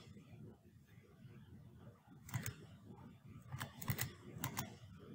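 Computer mouse clicking, faint: a handful of sharp clicks in the second half, some in quick pairs.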